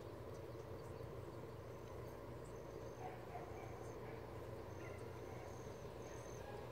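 Faint outdoor ambience with insects chirping: short, thin, high-pitched chirps repeating irregularly about once a second over a steady low background hum.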